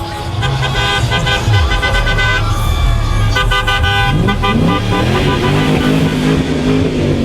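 Several car horns honking at once over the rumble of car engines in slow street traffic.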